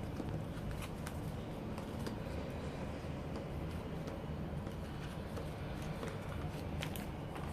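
Photo cards and paper goods being handled and put away: faint rustling and light taps, with a couple of sharper clicks near the end, over a steady low hum.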